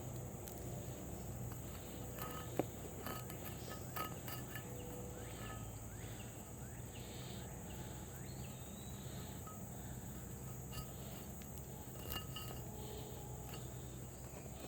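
Faint outdoor ambience: a steady high-pitched insect chorus, with a few soft clicks and knocks of handling scattered through.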